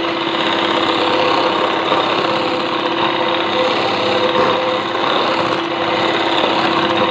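Electric hand mixer running steadily, its twin metal beaters whipping instant coffee and sugar in a glass bowl with a constant motor hum. The mixture has reached the thick, set foam of finished dalgona coffee.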